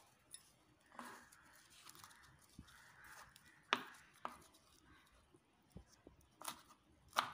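Kitchen knife slicing curry leaves on a wooden cutting board: a handful of faint, irregularly spaced taps of the blade on the board, with a soft slicing rustle between them.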